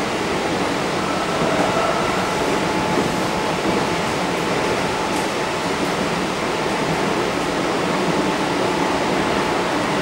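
Cabin noise of a Kintetsu 1230 series electric train running steadily: an even rumble of wheels on rail with a faint steady whine, heard from inside the car.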